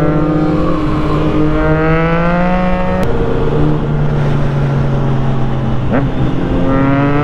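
Triumph Trident 660's three-cylinder engine with an aftermarket exhaust, pulling hard under acceleration. The pitch climbs, drops sharply at an upshift about three seconds in, dips again about six seconds in, then climbs once more near the end.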